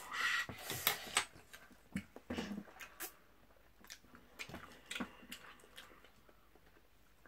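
Eating noises from spicy Buldak noodles and sausage: irregular clicks, chewing and mouth smacks, busier in the first couple of seconds and sparser after.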